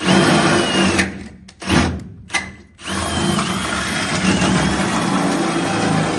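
Power drill running in three short bursts, then steadily for the last three seconds, with a faint whine over the motor. This is typical of drilling the outboard's mounting holes through a boat transom.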